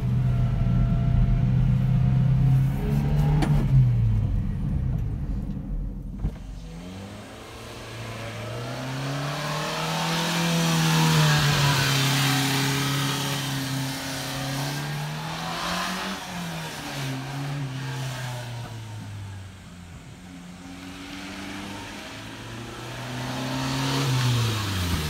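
Subaru Sambar kei truck's EN07 four-cylinder engine running. It holds a steady note with a heavy low rumble for about the first six seconds, then is revved up and down several times.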